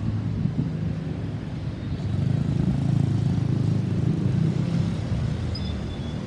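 Road vehicle engine and traffic rumble, growing louder about two seconds in and easing off near the end; no siren.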